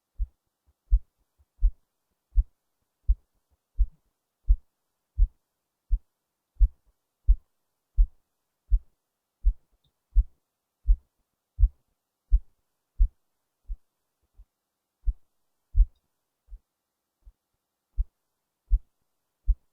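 A human heartbeat picked up by a microphone held against the chest under the left breast: regular low thumps at about 85 beats a minute, a few of them fainter than the rest.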